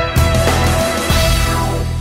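Background music: a band with drums and guitar playing, building to a final held chord.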